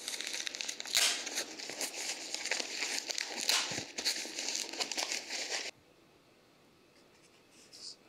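Foam and plastic packaging wrap crinkling and crackling as it is pulled off a small speaker, then cutting off suddenly about two-thirds of the way through.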